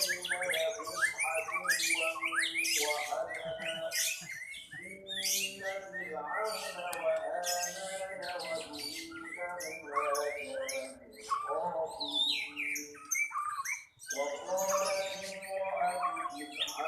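Many caged songbirds singing at once in a contest, a dense overlapping chorus of chirps, whistles and trills, with a brief lull near the end.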